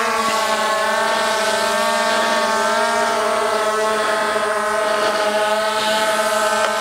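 Skydio 2 quadcopter drone in flight, its propellers giving a steady whine of several tones at once. The pitch bends briefly at the start as the drone adjusts, then holds steady.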